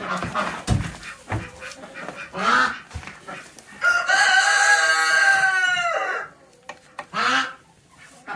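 A rooster crows once, a long call of a little over two seconds that dips in pitch at the end, near the middle. Shorter animal calls come just before and just after it, with a few dull thumps in the first second or so.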